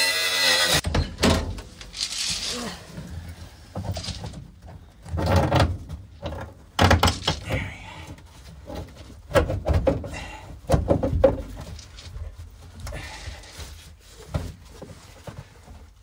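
Irregular metal clunks, knocks and scraping from hand work on the brake pedal and master cylinder linkage under a Morris Minor van's dashboard, as the old parts are worked loose.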